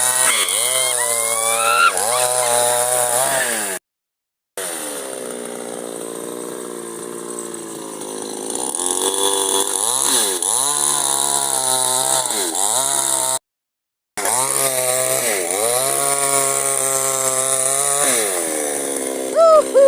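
Chainsaw cutting wood, its engine note dipping and recovering again and again as the chain bites. The sound drops out to silence twice for under a second.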